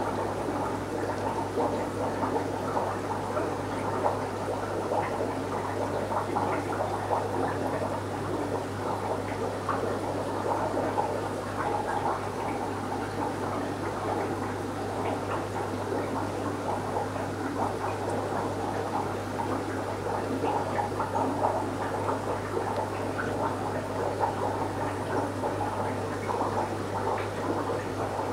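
Aquarium water bubbling and gurgling without a break, over a constant low hum, the sound of the tank's aeration or filter running.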